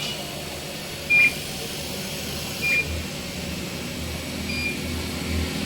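A few short, high electronic beeps at uneven intervals, the loudest about a second in, over a steady machine hum.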